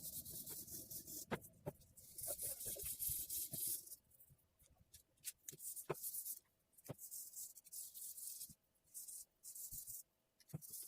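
Sandpaper worked by hand over a knife's African blackwood handle and its flat-ground pins: a faint, fine hiss of rapid back-and-forth strokes, in runs of one to two seconds with short pauses and a few small ticks between them.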